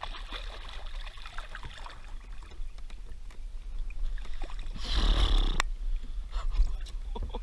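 Hooked bass thrashing and splashing at the surface beside a kayak, with a louder rush of splashing and dripping water about five seconds in as the fish is lipped and lifted out of the water.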